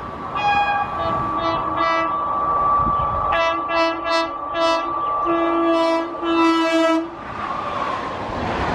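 WAP-4 electric locomotive sounding its horn in a long series of short blasts as it approaches at speed. The horn stops about seven seconds in, giving way to the rushing noise of the train passing close by.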